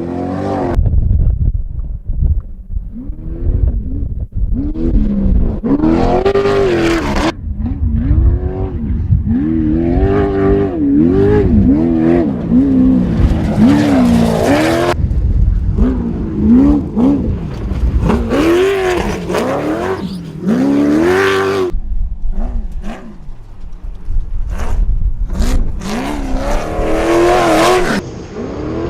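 Class 1 off-road race car's engine revving hard, its pitch climbing and dropping every second or two as the throttle comes on and off, over a heavy low rumble. Loud hissing rushes come and go on top.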